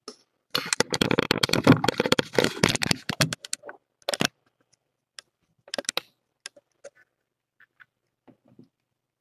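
Mother cat climbing into the blanket-lined bed beside her kittens: a dense run of rapid scratching and rustling clicks for about three seconds, then scattered single clicks and short rustles as she settles.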